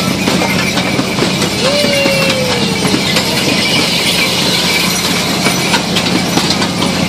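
Kiddie pony-cart ride turning: its wooden carts rattle and clatter steadily over a constant low hum.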